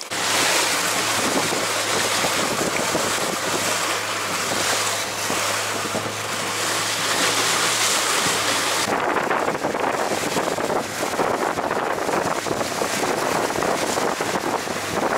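Small motor fishing boat running at speed over open sea: rushing water and spray along the hull, with heavy wind noise on the microphone. A steady low hum sits under it until about nine seconds in.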